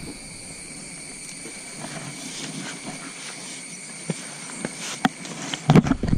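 Steady high-pitched drone of insects, with a few sharp clicks, then a burst of loud knocks and rustling near the end.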